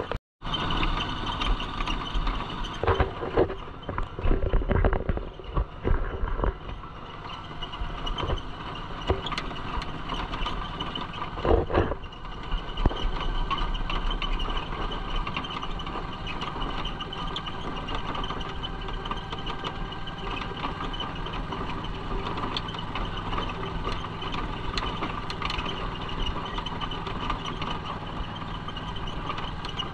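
Small motorcycle engine of a tuk-tuk (motorcycle-sidecar tricycle) running steadily while under way, heard from inside the sidecar. The sidecar gives a few knocks and rattles in the first dozen seconds.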